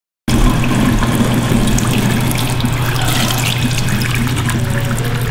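Water running from a washroom sink faucet onto hands in the basin, cutting in suddenly just after the start, over a steady low hum.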